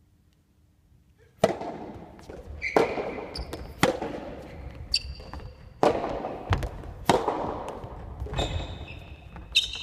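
Soft tennis rally in an echoing sports hall: the rubber ball cracking off rackets and bouncing on the wooden floor, about six sharp hits a second or two apart, each with a ringing echo, starting about a second and a half in. Short high shoe squeaks on the floor come between the hits.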